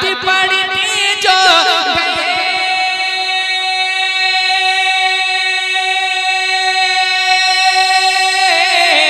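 A man singing an Urdu naat unaccompanied, drawing out a long wordless note: wavering ornaments for the first two seconds, then one pitch held steady for about six seconds, shifting near the end.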